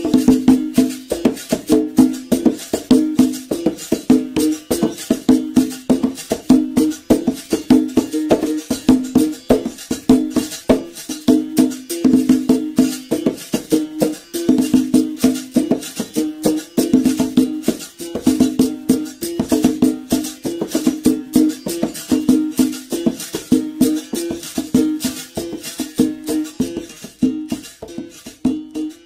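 Berimbau played solo: a fast, steady rhythm of stick strikes on the steel string, moving between a low note and a higher buzzed note, with the caxixi basket rattle shaking along with the strokes.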